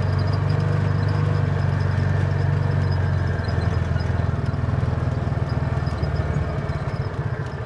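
Off-road buggy's engine running while the buggy drives along a dirt track, heard from the seat. About three seconds in, the steady drone drops into a slower, pulsing throb.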